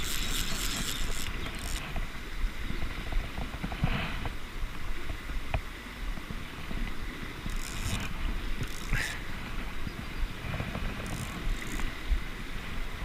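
Fast river water running over stones with wind rumbling on the microphone, and a few short bursts of a fishing reel's clicking ratchet as line is pulled off by hand: one at the start and more around two-thirds of the way through.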